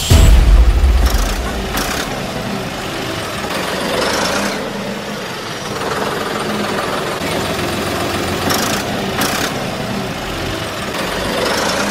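Tractor engine running steadily at idle, opening with a heavy low rumble in the first second or so, with a few brief rushes of noise over it.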